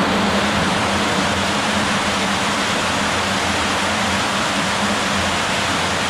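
The River Fleet pouring over a drop in a brick sewer tunnel and rushing along the channel: a loud, steady roar of falling water, with a faint low hum beneath it.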